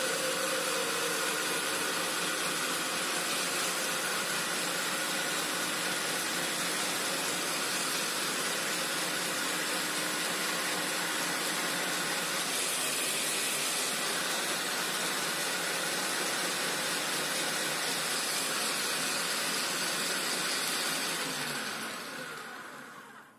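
Bolde Super Processor food processor's electric motor running steadily, turning the citrus-juicer reamer while a lemon half is pressed onto it. Near the end it is switched off and winds down over about two seconds.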